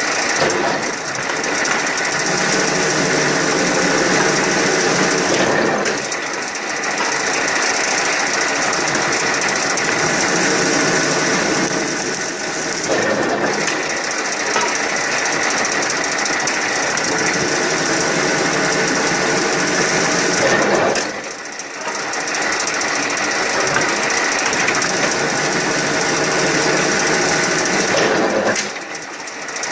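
Small spindleless wood peeling machine running, its steel rollers turning and working wood in a loud, steady mechanical clatter. The noise dips briefly four times, about every seven to eight seconds.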